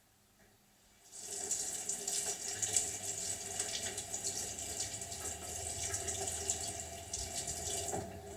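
Kitchen tap turned on about a second in, water running steadily into the sink as hands are rinsed, easing off near the end.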